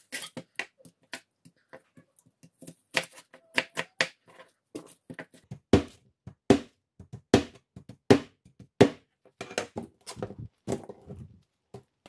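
Irregular sharp clicks and taps from objects being handled, with a run of louder knocks about six to nine seconds in, roughly one every second.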